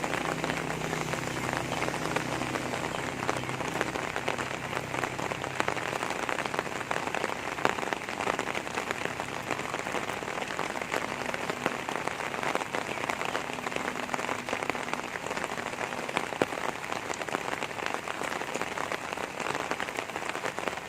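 Steady rain falling and pattering on surfaces, dense with small drop ticks. A low steady hum underneath fades out about six seconds in.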